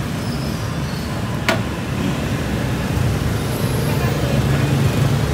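Steady street traffic noise, a low rumble of passing motorbikes and cars. There is one sharp click or knock about one and a half seconds in.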